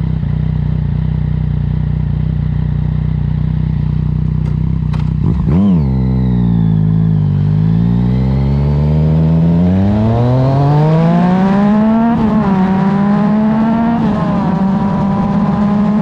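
Yamaha XSR900's three-cylinder engine through an Arrow aftermarket exhaust. It idles steadily for about five seconds, gives one quick throttle blip, then pulls away and climbs in pitch under acceleration, with brief dips in pitch about twelve and fourteen seconds in.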